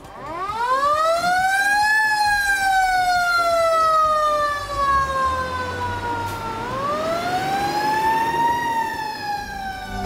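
Fire engine siren wailing: the pitch rises over about two seconds, sinks slowly, then rises again about six and a half seconds in and starts to fall.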